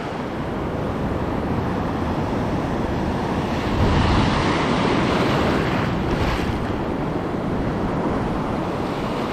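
Ocean surf washing onto the beach, a steady rush that swells about four seconds in, with wind buffeting the microphone.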